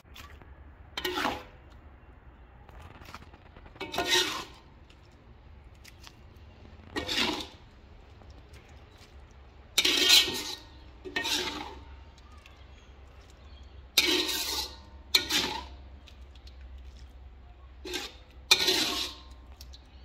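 Metal ladle scraping minced chicken out of a metal wok and knocking against a glass bowl, in about nine separate scoops, each a short clatter of under a second, a couple of seconds apart.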